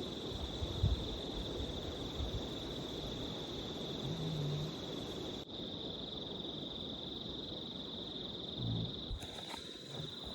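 A steady, high-pitched insect drone, like crickets, runs on unbroken through the night bush. A few short, low sounds come underneath it, about four seconds in and again near the end.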